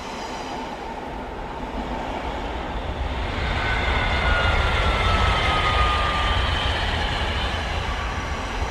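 High-speed train passing: a steady rumble and rush that builds to a peak midway and then eases off, with a high whine that slides down in pitch as it goes by.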